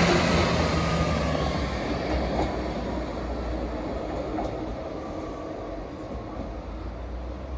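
Train running and fading away, a low engine drone with rail and wheel noise dying down.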